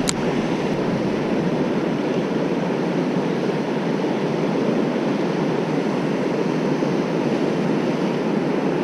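Steady rush of river water pouring over a low-head dam and churning in the current below it.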